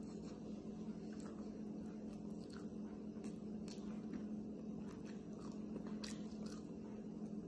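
Close-up chewing of a grilled flatbread wrap: soft wet mouth smacks and scattered small clicks as bites are chewed, over a steady low hum.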